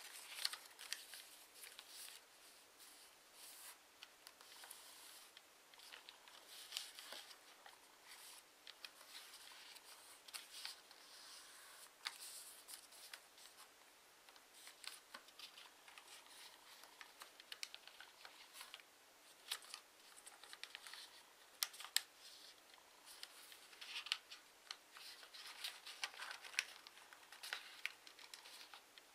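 A sheet of origami paper being folded and creased by hand: faint, irregular rustles and crisp crackles of the paper, with occasional sharper clicks as folds are pressed flat.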